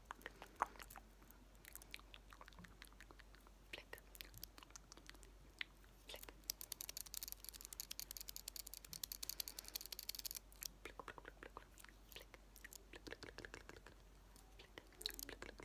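Close-up ASMR clicking from a metal eyelash curler handled right at the microphone, mixed with soft mouth sounds. About six seconds in, a fast run of crisp clicks lasts some four seconds.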